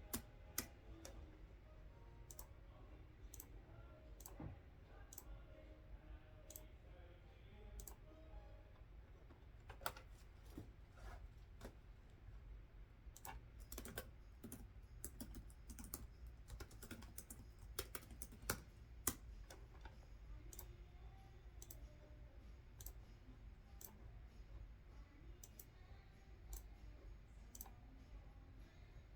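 Quiet typing on a computer keyboard: scattered, irregular keystroke clicks that come thicker and faster through the middle stretch.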